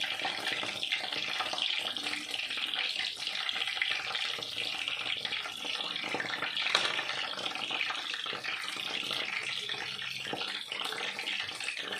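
Battered calamari rings and potato fries deep-frying in hot oil: a steady crackling sizzle, with a single sharp click about seven seconds in.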